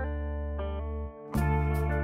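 Background music: a guitar melody over a held bass note. It dips briefly about a second in, then comes back with a beat.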